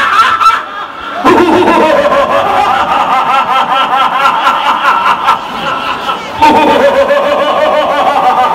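A man's long, exaggerated stage laugh in two drawn-out bouts, with a short break about six seconds in.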